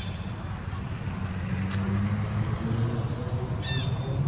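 Steady low hum of a motor vehicle's engine running, its pitch shifting a little about halfway through. Two short high chirps cut across it, one at the very start and one near the end.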